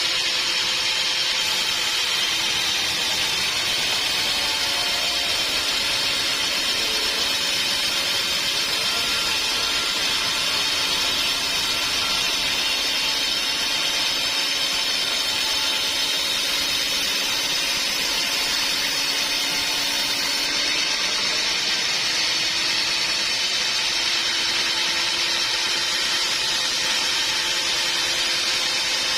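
Band sawmill running steadily, a continuous even machine noise with a high whine.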